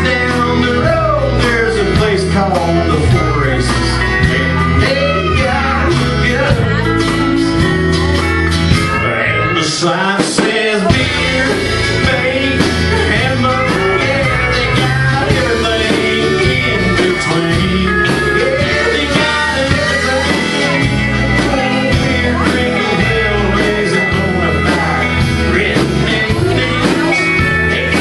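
Live country band playing loud: electric bass, guitars, drums and steel guitar, with gliding, bending notes over the top. The bass end drops out for about a second a little over ten seconds in.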